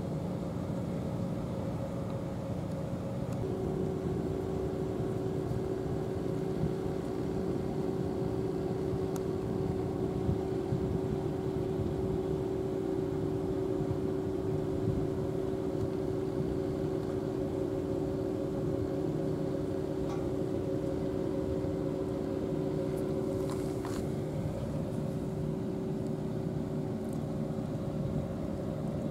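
Steady drone of an engine or machine running at a constant speed, with a humming tone that comes in a few seconds in and drops away near the end.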